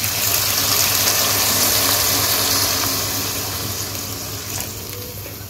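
Water poured in a stream into a hot kadai of browned chicken and potatoes, splashing into the pan. It starts suddenly, is loudest in the first couple of seconds, then slowly fades. This is the stage where water is added after browning the masala, to make the curry's gravy.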